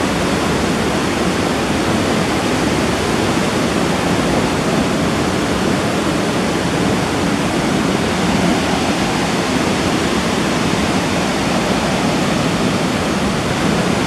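Haew Narok waterfall's steady, even rush of falling water, unbroken throughout.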